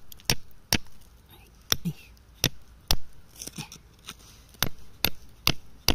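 Hammer blows chipping at rock to free amethyst crystals: about nine sharp knocks at an uneven pace of one or two a second.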